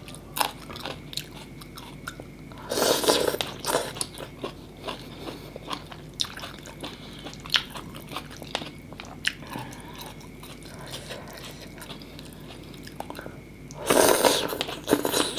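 Close-miked eating: crisp bites and chewing of raw greens with many sharp crunchy clicks, and two longer, louder slurps of mì Quảng noodles, one about three seconds in and one near the end.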